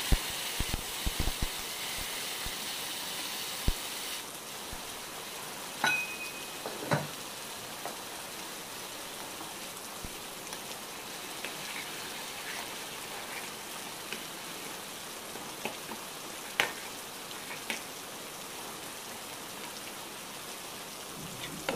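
Tomato chutney simmering in a kadai: a steady soft sizzle with a few scattered pops and spatters as the thick paste bubbles.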